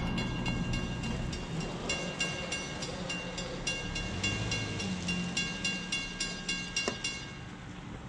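Railroad grade-crossing warning bell ringing in a steady, even rhythm, then stopping near the end as the crossing warning ends. Under it is the low rumble of the passing Downeaster passenger train.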